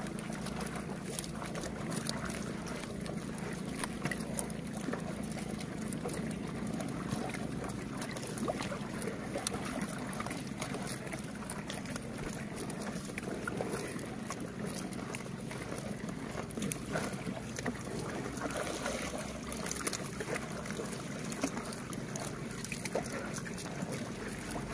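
Swamp buffaloes tearing and chewing floating kumpai batu grass in water, a steady run of small crunching and rustling clicks with water sloshing around their heads, over wind noise on the microphone and a steady low hum.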